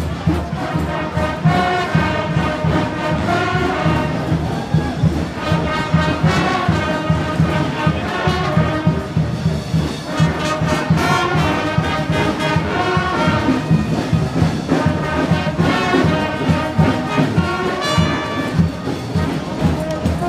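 Brass band playing in a parade, trumpets and trombones over a steady beat.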